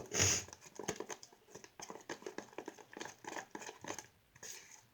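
Stirring a thick flour-and-shampoo slime dough in a bowl: irregular clicking and scraping of the stirring utensil against the bowl and through the sticky mixture, with a short louder rustle at the start and a brief pause near the end.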